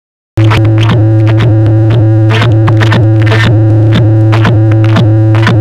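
Very loud electronic dance music playing through a tower of horn loudspeakers, cutting in suddenly just after the start, with a steady low drone under a repeating beat.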